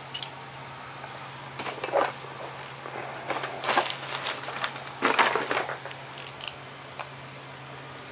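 Hand tools being picked up and handled among other tools on a carpeted floor: a few short bursts of rustling and clatter with scattered light clicks. A steady low hum runs underneath.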